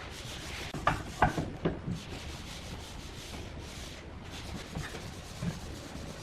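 Rubbing and scraping on wood, like sanding strokes, with a few sharp knocks in the first two seconds.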